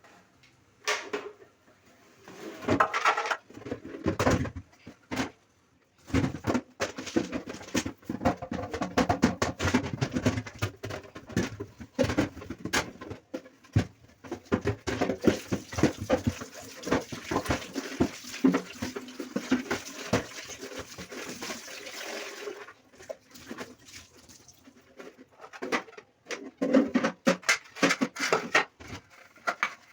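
Fridge parts being hand-washed in a bucket of water: splashing and sloshing with irregular knocks and clatters. It is busiest through the middle and thins out near the end.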